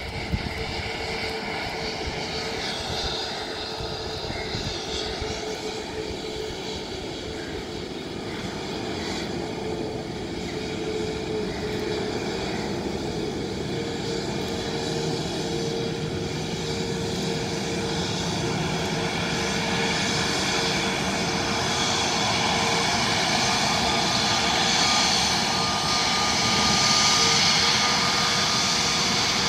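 Airbus A320neo's jet engines running at taxi power: a steady whine over a low rumble, growing gradually louder as the airliner taxis closer.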